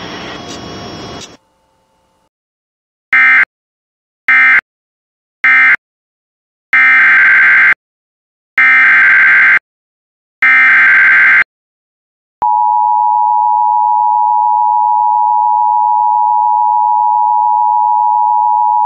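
Emergency Alert System signalling: three short raspy digital data bursts (the end-of-message code closing the previous alert), then three longer one-second bursts of the SAME header announcing the next alert. About twelve seconds in, the steady two-tone EAS attention signal (853 and 960 Hz) starts and holds.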